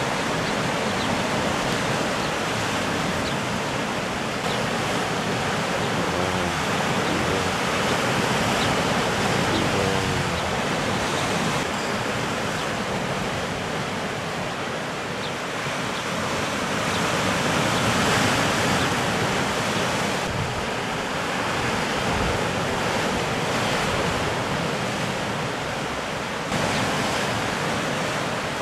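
Sea surf breaking and washing against a rocky lava shoreline: a steady rush of water that swells and eases a little.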